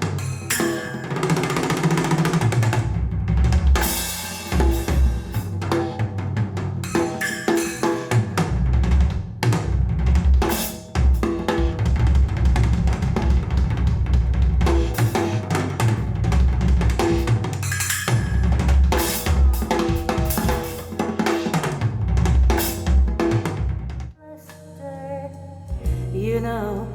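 Music driven by a drum kit, with bass drum, snare and rimshots playing a busy beat. About three seconds before the end the drums stop and a quieter passage of sliding pitched notes begins.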